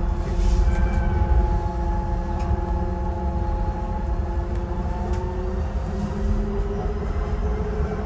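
Docklands Light Railway train running along its track, heard from inside the car: a low rumble of wheels on rail with a steady electric whine of several tones, one of which changes pitch about five seconds in.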